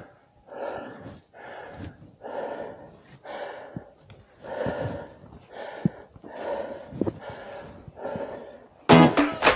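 A person breathing hard and rhythmically, about one heavy breath a second, while scrambling up a steep slope by hand, with a few faint knocks of hands and feet on roots. Guitar music comes in near the end.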